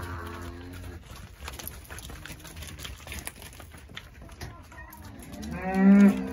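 Charolais calves mooing: one call trails off in the first second and a louder, wavering call comes near the end. Scattered knocks of hooves on the stony ground come in between.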